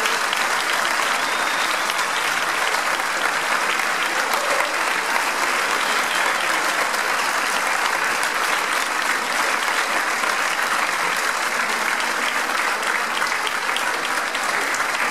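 Audience applauding steadily, dense even clapping with no break.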